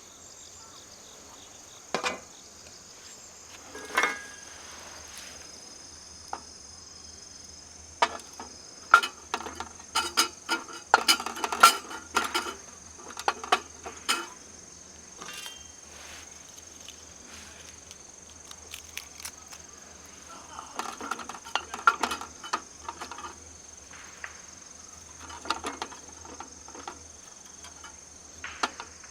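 Insects, such as crickets, chirping steadily in a high, even drone. Over it come scattered clicks and clinks of hard camp gear being handled, busiest a third of the way through and again near the end.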